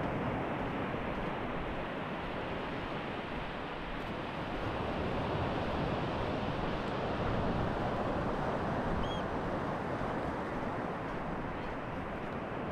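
Sea surf washing on the shore, mixed with wind: a steady rush that eases a little and then swells again.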